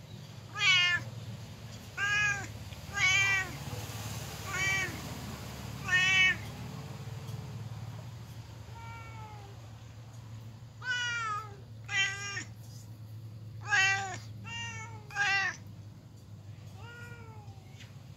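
Domestic cats meowing over and over, about a dozen separate meows with short gaps between them: hungry cats crying for food. A steady low hum runs underneath.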